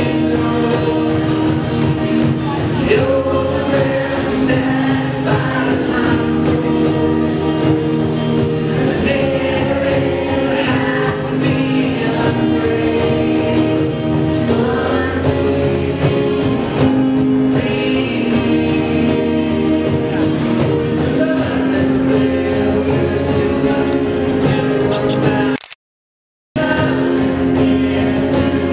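Live worship band performing: a group of young voices singing together over strummed acoustic guitars, keyboard and cajon. The sound drops out completely for under a second near the end.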